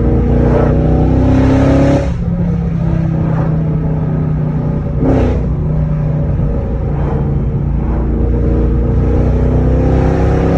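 Chrysler 300C's engine and exhaust under acceleration: the revs climb for about two seconds, drop sharply at an upshift, hold steady while cruising, then climb again toward the end.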